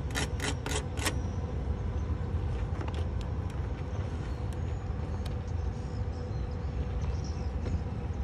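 Arc welding on a truck's steel body: a run of sharp crackles from the arc for about the first second, then it stops. A steady low machine hum, with a few faint ticks, carries on after that.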